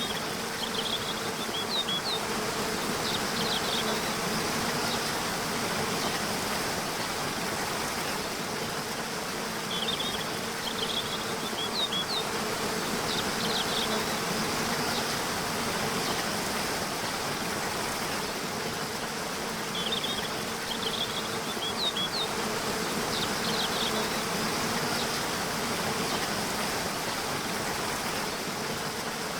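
Waterfall rushing steadily under a continuous low buzz, with short groups of bird chirps coming back about every ten seconds.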